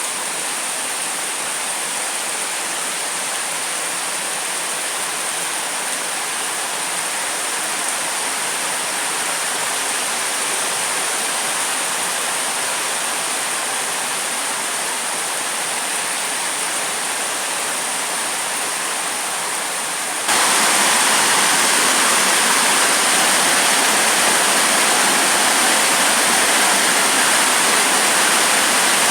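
Heavy rain of a rainy-season storm pouring steadily, a continuous rushing hiss that jumps suddenly louder about twenty seconds in.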